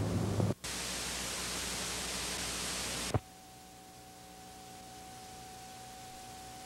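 Analog videotape static at an edit: a loud, even hiss for about two and a half seconds that ends in a click, followed by fainter hiss with a steady high tone.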